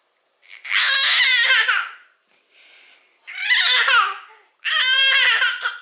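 A baby boy's high-pitched squealing laughter: three long outbursts, each about a second, with a faint breathy intake between the first two.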